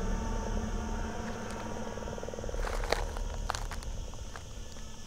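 Outdoor ambience: a steady low rumble with a fast, fine buzzing in the first half and a few sharp clicks about three seconds in.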